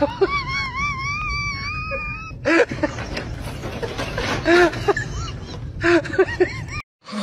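A man's vocal strain under a heavy overhead dumbbell press: a high, wavering wail for about two seconds, then a run of short strained cries and yells.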